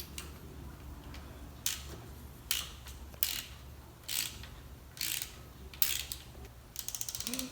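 Hand ratchet wrench clicking in short strokes, about six of them roughly a second apart, then a quick run of rapid clicks near the end. It is bolting the engine harness ground wires to the back of the cylinder head.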